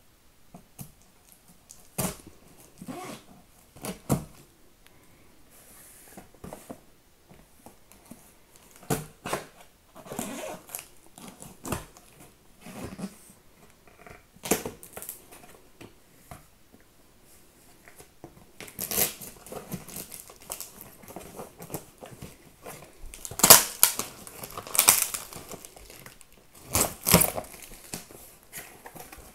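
Packing tape being ripped off a cardboard box and the flaps pulled open by hand: a series of short tearing and crackling sounds with cardboard rubbing, louder and closer together in the last third.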